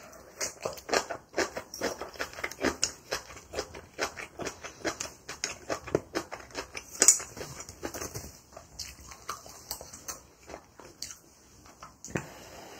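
Chewing a mouthful of kimchi: an irregular run of crisp, wet crunches and mouth clicks, a few a second, with one sharper click about seven seconds in.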